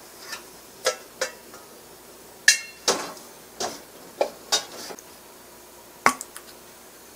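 A metal ladle knocking and scraping against an iron wok: about ten separate clinks, the loudest about two and a half seconds in, ringing briefly.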